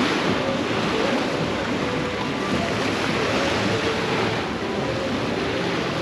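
Ocean surf breaking and washing up on a sandy beach, a steady rushing wash of waves.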